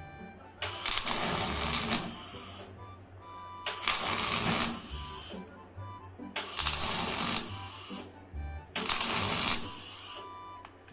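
Arc welding on an adjustable wrench: four bursts of hissing, crackling arc noise, each about a second long, roughly every two and a half seconds, over background music.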